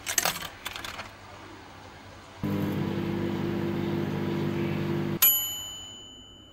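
A few sharp clicks, then a microwave oven running with a steady hum for about three seconds. It stops with a click and a single bell ding as heating finishes.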